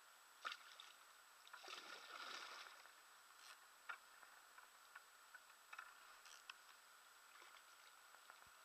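Near silence: a few faint ticks, and a soft swish of water about two seconds in.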